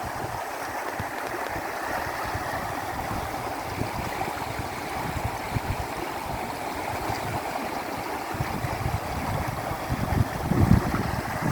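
River water flowing in a steady rush, with gusts of wind buffeting the microphone, strongest about ten seconds in.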